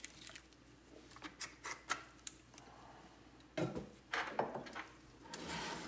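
Light clicks and scrapes of a resin printer's metal build platform being handled and set down on a stainless steel tray, with a louder stretch of clattering contact a little past halfway.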